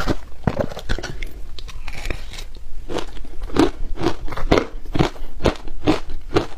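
Shaved ice dusted with matcha milk powder being bitten and chewed close to the microphone. It makes a steady run of crisp crunches, about two or three a second.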